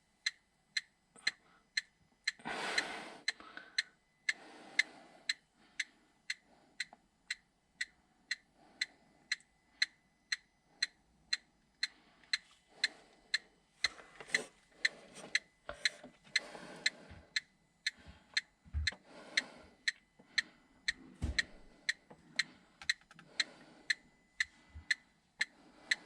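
Hand-held electronic gas leak detector ticking steadily, about two ticks a second; the slow, even rate is its reading of no gas at this spot. Rustling and handling noises come in between, loudest about three seconds in.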